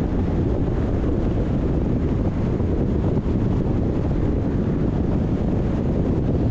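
Steady low rumble of road and wind noise from a car driving along the road.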